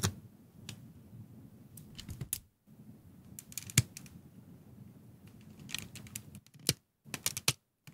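Plastic model-kit parts handled and pressed together by hand: scattered small plastic clicks and taps over soft rubbing, the sharpest click a little under four seconds in and a quick run of clicks near the end.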